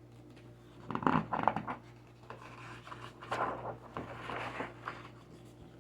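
Paper rustling in two short bouts as the pages of a large picture book are turned.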